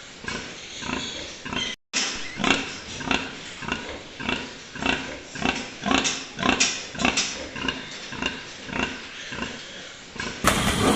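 Pigs grunting in a steady string of short grunts, about two to three a second.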